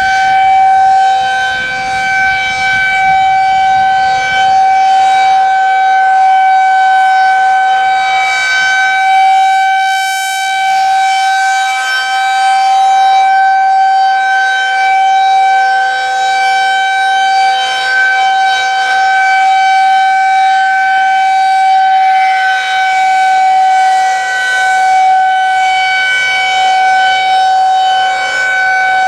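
Federal Signal 2001-130 outdoor warning siren sounding a steady tone at one unchanging pitch during its monthly test. Its loudness swells and dips slightly as the rotating siren head turns.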